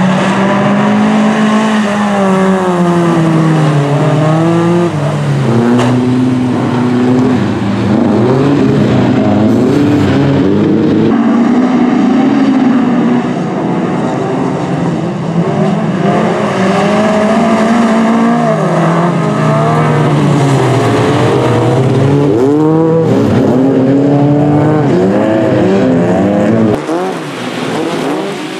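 A pack of jokkis folk-race cars revving hard as they race together. Several engines rise and fall in pitch through gear changes and corners, overlapping one another, and the sound drops quieter near the end.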